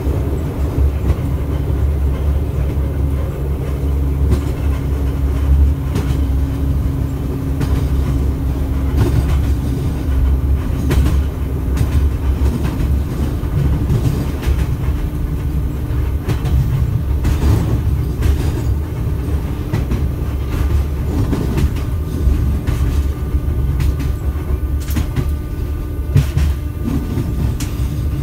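81-717.5 metro train running at speed, heard from the driver's cab: a steady low rumble with a hum that fades about twelve seconds in, and wheels clicking over rail joints now and then.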